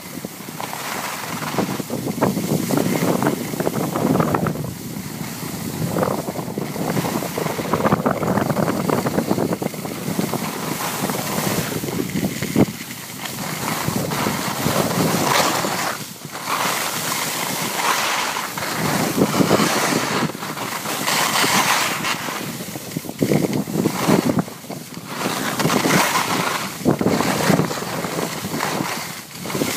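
Wind buffeting the microphone of a camera carried by a downhill skier, surging and easing every second or two, mixed with the hiss of skis sliding over packed snow.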